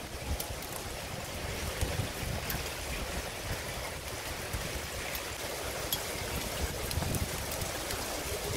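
Heavy rain falling steadily, a dense hiss with scattered sharp ticks of drops striking nearby surfaces.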